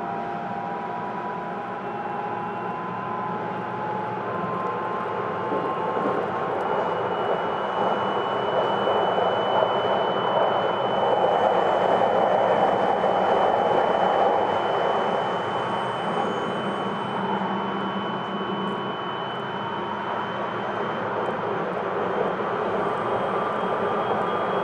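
On-board running sound of a Hokuetsu Express HK100 electric multiple unit with a Mitsubishi IGBT-VVVF inverter and MT68 traction motors. A steady high whine and fainter motor tones sit over the wheel-and-rail roar, which swells to its loudest around the middle and eases off again.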